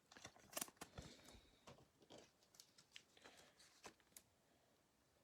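Near silence with faint clicks and ticks of trading cards being handled and flipped, a small cluster about a second in and a few single ticks after.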